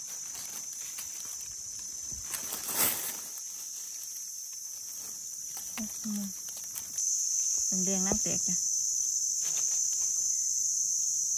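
Steady high-pitched insect drone from the forest, which steps up louder about seven seconds in, with a short crackle of dry leaves about three seconds in.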